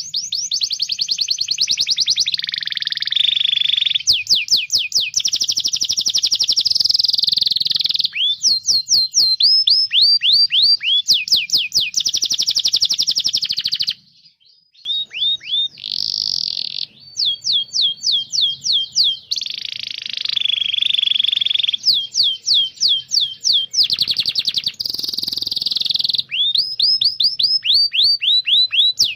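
Domestic canary singing a long, continuous song: fast rolling trills alternating with runs of sharp, downward-sweeping chirps, broken by a short pause about halfway through.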